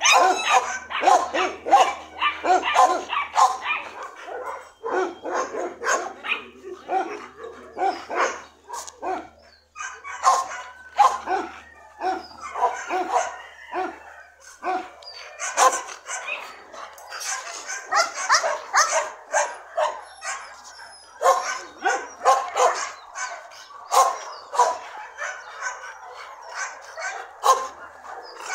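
Dogs barking and yipping almost without pause, many short barks following close on one another and overlapping.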